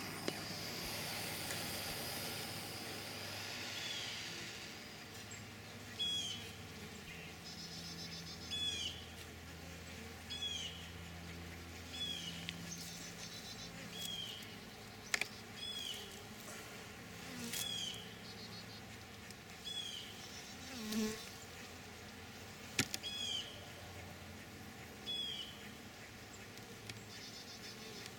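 Propane torch hissing for the first few seconds as it heats a homemade oxalic acid vaporizer in the hive entrance, then stopping. After that a short high chirp repeats about every two seconds over a faint low hum.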